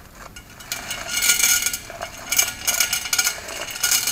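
Small gravel stones poured from a plastic cup down a metal tube, loaded as shot into a home-made shotgun barrel, rattling and clinking against the metal. The pour comes in three spells of about a second each, the last one short, near the end.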